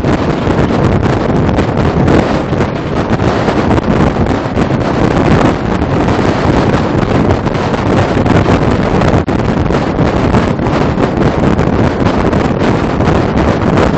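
Heavy wind rushing and buffeting the microphone over the steady rumble of a truck and lowbed trailer travelling at highway speed, heard from the open top of the load.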